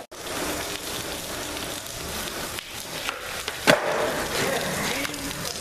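Skateboard wheels rolling on concrete, with one sharp clack of the board against the ground about three and a half seconds in.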